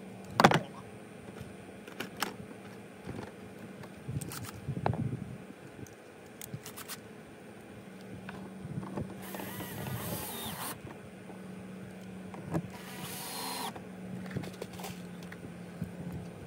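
Cordless drill handled while a Phillips bit is fitted into its chuck: scattered clicks and taps of the tool and bit, the sharpest about half a second in, then two short bursts of whirring noise as the keyless chuck is spun tight, over a faint steady low hum.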